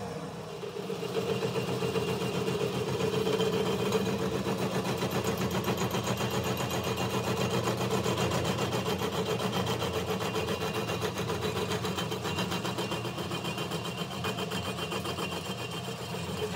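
Metal lathe starting up about a second in, then running steadily as it spins a welded Hino truck drive shaft for turning down the weld. The sound is a steady hum with a fast, even flutter.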